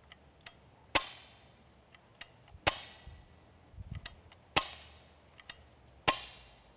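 HellBoy .177 CO2-powered BB rifle firing steel BBs semi-auto: four sharp shots, about one and a half to two seconds apart, each with a short ringing tail, with fainter ticks between them.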